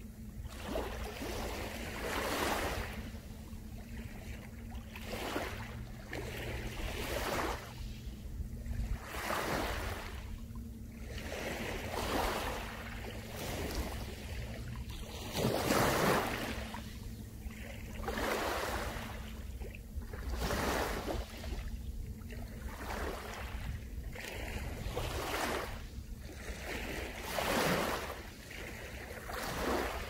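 Small sea waves breaking and washing up a pebble beach, one soft surge every couple of seconds, the largest about halfway through.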